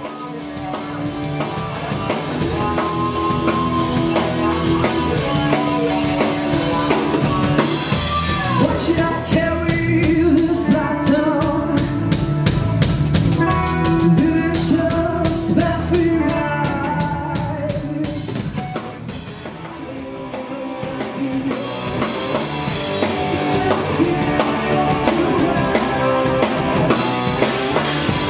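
A rock band playing: drum kit and electric guitars with a male lead singer. The vocal comes in about eight seconds in, and the music eases off briefly around two-thirds of the way through before building again.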